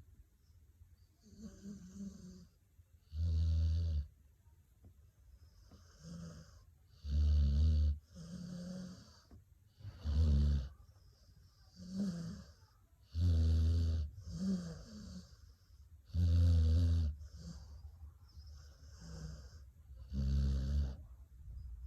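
Sleeping dog snoring: six loud, low, buzzing snores about every three seconds, with softer breaths in between.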